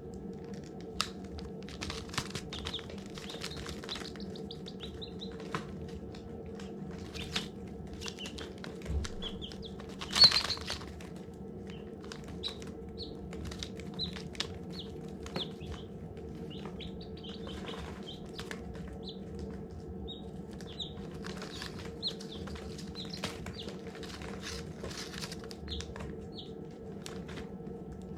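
Baby chicks peeping: many short, high chirps scattered through, over a steady low hum. Sharp taps are mixed in, with a louder burst about ten seconds in.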